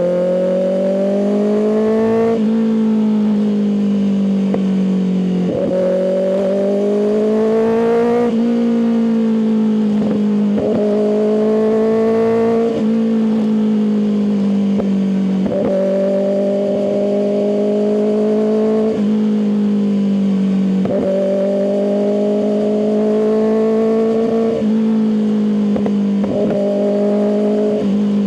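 Kawasaki ZX-6R inline-four running through an M4 aftermarket exhaust while riding. The engine's pitch climbs and then steps down about every two to three seconds as the rider changes gear or rolls the throttle on and off.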